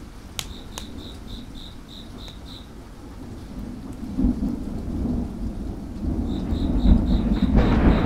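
Thunder rolling, a low rumble that builds from about halfway and swells toward the end as a rain-like hiss rises with it. A high, even chirping about three times a second runs in the first third and returns near the end. Two sharp crackles from a wood fire come near the start.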